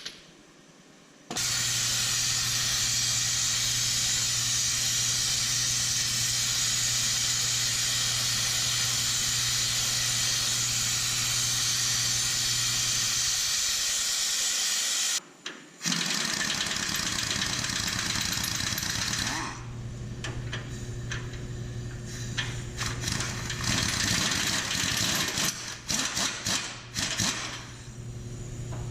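A motor-driven machine running steadily with a low hum and a strong hiss, starting abruptly about a second in and cutting out briefly about halfway. It then runs again with irregular clattering near the end.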